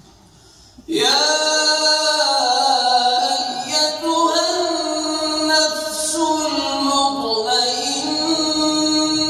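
A man reciting the Quran in a melodic, drawn-out chant. It sets in about a second in, after a brief quiet, with long held notes that rise and fall in pitch.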